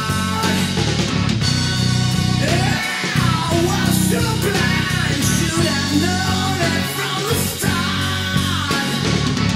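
Rock band recording: electric guitar, bass and drums playing, with a melody line that bends and slides in pitch over them.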